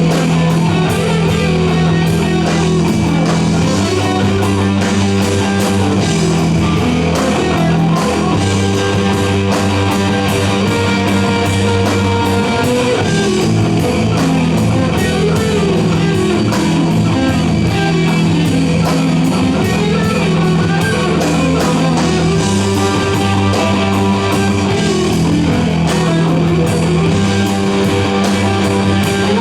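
Rock band playing an instrumental passage: electric guitars over long held bass notes that change every few seconds, with a steady drum beat.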